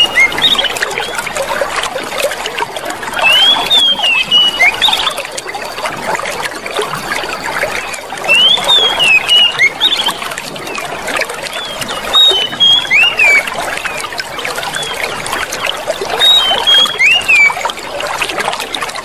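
Running water trickling steadily. Over it, groups of quick high chirps rise and fall about every four seconds, and these are the loudest sounds.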